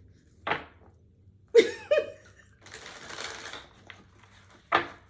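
A woman's short, breathy laugh-like vocal sounds, once about a second and a half in and again near the end, with about a second of soft rustling between them and a single small click.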